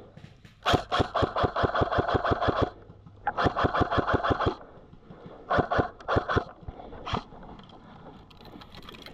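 Airsoft rifle firing on full auto in three bursts, at roughly eight to ten shots a second. The first burst lasts about two seconds, the second about a second and the third under a second, and a single shot follows near the end.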